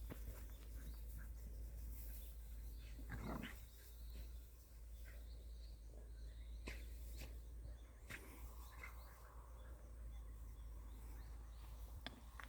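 Faint sounds of a Pungsan dog running through tall grass: scattered soft rustles and clicks over a low steady rumble, with one short animal sound about three seconds in.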